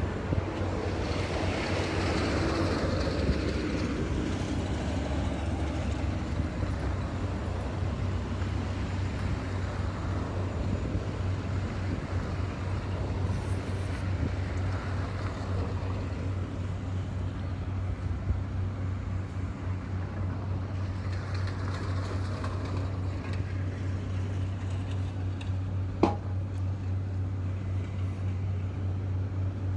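Steady low hum and road noise of a car driving slowly, with traffic around it. A vehicle passes about two seconds in, its sound falling in pitch, and another swells past later on. There is a single sharp click near the end.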